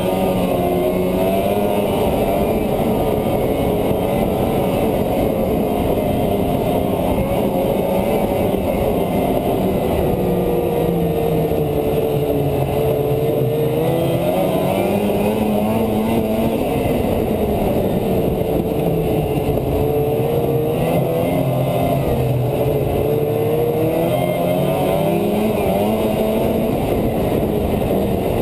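Polaris 550 snowmobile's two-stroke twin engine running at trail speed, its pitch rising and falling as the throttle is eased off and opened again.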